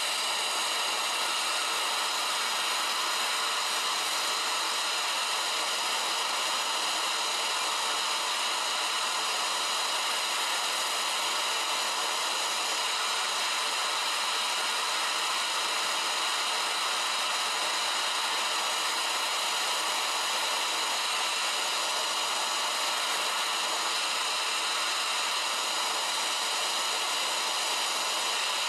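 Gas torch burning steadily with an even, unbroken hiss as its flame is held into a ceramic melting dish.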